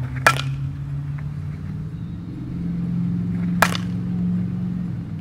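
A softball bat hitting the ball twice, sharp cracks about three seconds apart, the first just after the start. A steady low engine hum runs underneath and rises in pitch partway through.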